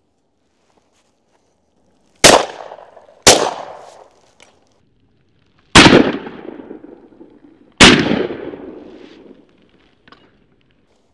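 Four shotgun shots: two about a second apart, then two more about two seconds apart, each trailing off as it fades.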